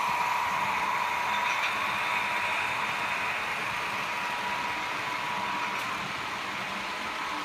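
Märklin H0 model trains running past on the track: a steady whirring rumble of wheels and motors with a thin whine, easing slowly as the trains move along.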